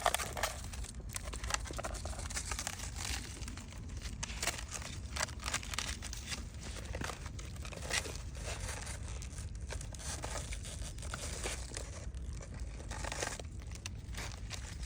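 Irregular crunching and crackling of footsteps breaking through a thin frozen crust of ice.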